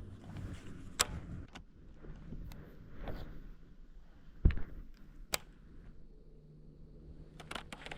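Scattered clicks and knocks of fishing tackle being handled in a small boat, with one heavier thump about halfway through and a few quick clicks near the end, over a faint steady low hum.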